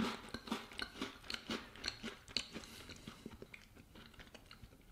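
A crisp dark-chocolate-coated biscuit stick (Mikado/Pocky) bitten off with a sharp snap, then chewed with a run of irregular crunches that thin out toward the end.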